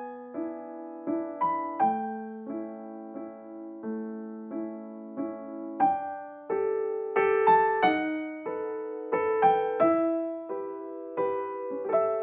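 Gentle solo piano background music: a slow melody over soft chords, each note struck and left to fade.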